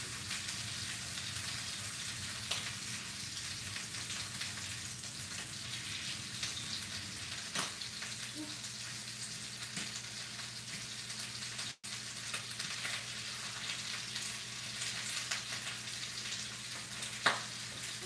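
Eggs and chorizo sizzling steadily as they fry in a skillet, the grease spitting, with light clicks of a fork stirring against the pan. There is one sharp knock near the end.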